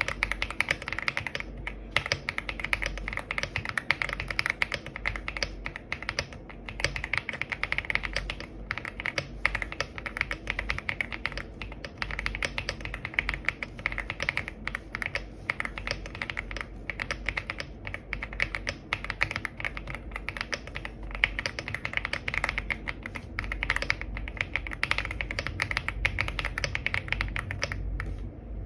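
Epomaker x Leobog Hi75 mechanical keyboard being typed on at a fast, steady pace: a dense stream of key clacks, broken by a few brief pauses.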